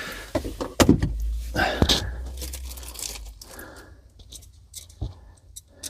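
Handling noises from sink-fitting work: two sharp knocks about one and two seconds in, then light scraping and scattered small clicks.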